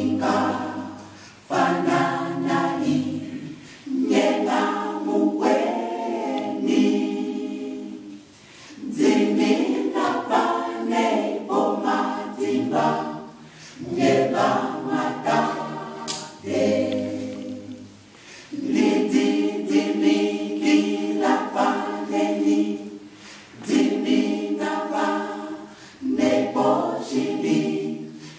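Mixed choir of men's and women's voices singing a cappella in harmony, without instruments. The singing comes in phrases a few seconds long, with brief breaks between them.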